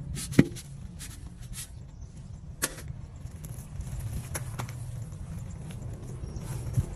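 Hand gardening work: soil tipped out of a metal basin and plants pressed into the bed by hand, with a few sharp knocks, the loudest about half a second in and another near three seconds, over a steady low hum.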